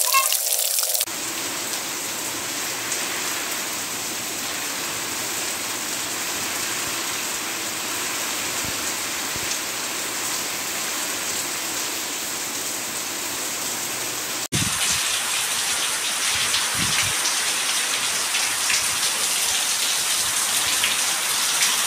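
Heavy rain falling steadily. About 14 seconds in it jumps to a louder, harsher downpour, with water pouring off a roof edge.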